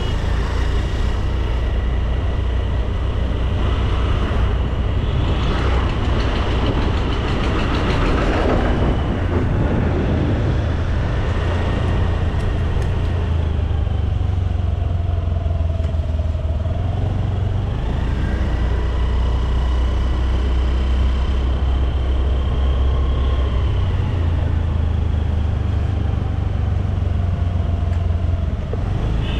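Honda Activa 125 scooter riding along in traffic: its single-cylinder engine running, with steady road and wind noise and a deep rumble throughout. There is a louder rush of noise about eight seconds in, and a whine that falls in pitch around sixteen seconds in.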